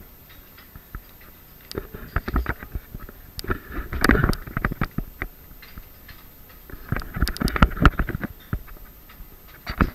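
Irregular clinks and knocks of plates and metal serving utensils at a buffet counter, in three clusters: around two seconds in, around four seconds in, and around seven to eight seconds in.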